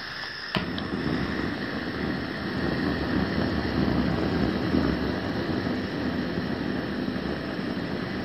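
Hand-held propane torch being lit: gas hisses from the opened valve, a sharp click comes about half a second in, and the flame then catches and burns steadily with a low rushing sound over the hiss.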